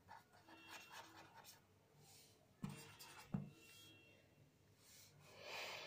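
Faint scratching of a ballpoint pen writing on paper, with two short taps of the pen a little after the middle.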